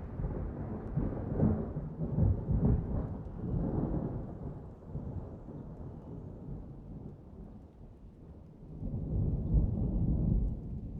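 Rolling thunder in a summer storm, rumbling in waves with steady rain. The rumble dies away past the middle, then swells again near the end.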